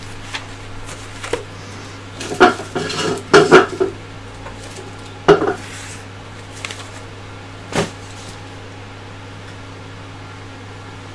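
Handling noises: a quick run of clatters and rustles from about two to four seconds in, another burst a little after five seconds and a single one near eight seconds, over a steady low hum.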